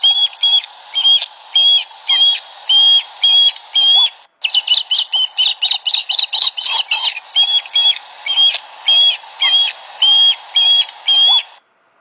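Recorded bird chirping played loudly through the small speaker of an electronic sound-playback module, thin with no low end. The clip breaks off about four seconds in and starts over, repeating as the module is set to play twice, then stops near the end.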